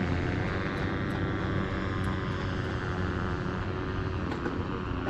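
A small aircraft engine running with a steady drone, its pitch easing down slightly over the first few seconds.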